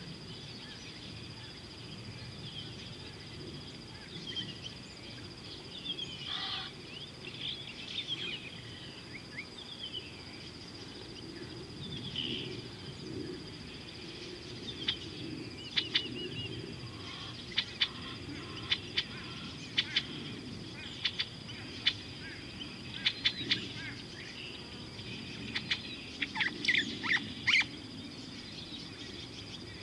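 Wild birds calling in short, sharp chirps that come more often in the second half and cluster near the end, over a steady high insect trill and a low background rumble.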